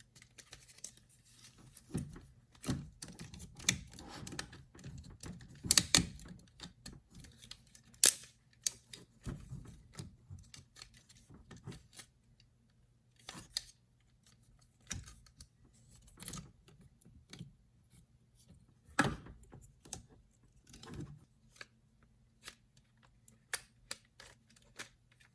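Plastic parts of a Transformers robot display figure clicking, snapping and knocking as it is handled and folded into shape: irregular sharp clicks, with a few louder snaps about a quarter of the way in and again about three quarters through.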